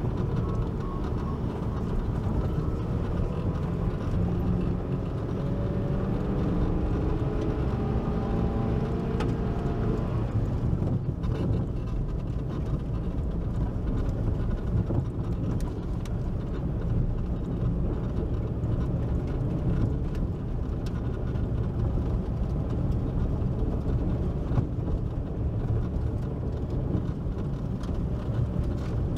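Car driving slowly along a rough, rutted dirt track, heard from inside the cabin: a steady low rumble of engine and tyres.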